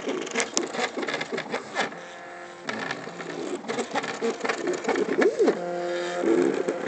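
Stepper motors of a modified MakerBot Cupcake 3D printer driving the print head and build platform during a print, singing in tones that jump between pitches and glide up and down as the moves speed up and slow down under acceleration control.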